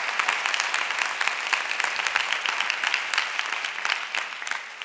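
Audience applause: many hands clapping steadily, starting to die away near the end.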